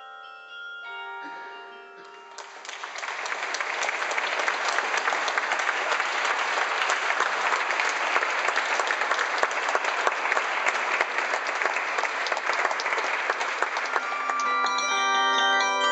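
Bronze bells of a travelling carillon ringing out and fading. After about two seconds an audience breaks into applause that lasts roughly twelve seconds. Near the end, bell notes start again.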